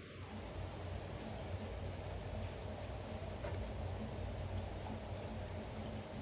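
Water dripping and splashing as a baby monkey's wet fur is rubbed and washed by hand, over a steady low background hum.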